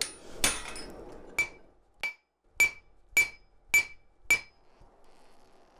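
Blacksmith's hammer striking metal on the anvil about seven times, each blow with a short bright metallic ring, the last five evenly spaced about half a second apart, then stopping. The blows split the forged dragon head between the eyes.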